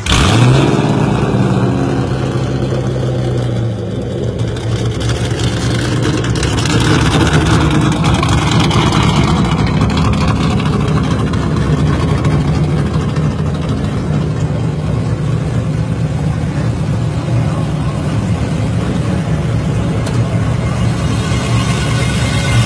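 Built LS3 V8 in a 1986 Camaro idling through its dual exhaust. The sound jumps sharply at the very start with a brief rise in pitch, then settles into a steady idle with a low, even note.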